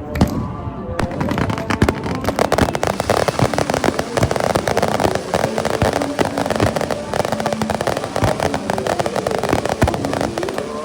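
Aerial fireworks crackling: a dense, rapid run of small pops and crackles that starts about a second in and dies away just before the end.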